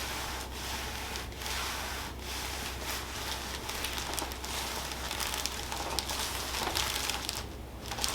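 Hands rubbing and working over the patient's clothing and body during a massage, a steady rustling friction broken by short pauses between strokes, about one a second at first.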